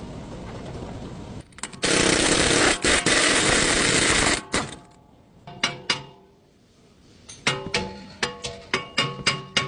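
A loud, even hiss lasting about two and a half seconds, then a run of sharp metallic-sounding strikes, about three or four a second, each ringing at the same few pitches.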